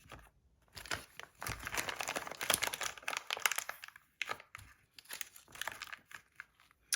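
Packaging crinkling and tearing as it is unwrapped by hand, dense crackling for about three seconds, then scattered rustles and a sharp click near the end.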